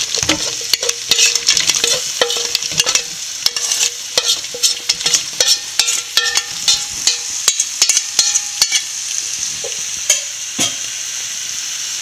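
Cooked crab pieces and onion masala frying in a pan, with a steady sizzle, while a wooden spatula stirs them in. The spatula and pieces knock and click against the pan many times, and the clicking thins out about nine seconds in, leaving mostly the sizzle.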